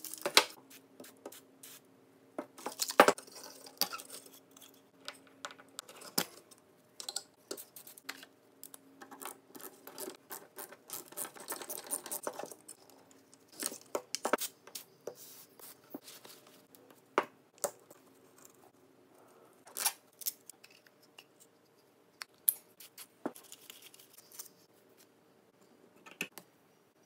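Plastic and metal parts of an exhaust fan clicking, knocking and scraping as it is taken apart by hand, with the sharpest knock about three seconds in.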